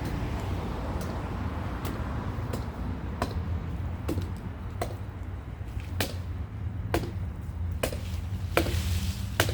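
Sharp, short strikes repeating about every three-quarters of a second, typical of tree limbs being chopped or snapped by hand, over a steady low hum.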